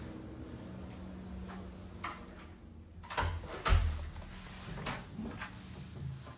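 Wooden cupboard door being swung shut, with a few knocks and one heavy thump a little under four seconds in. A low steady hum runs beneath for the first three seconds.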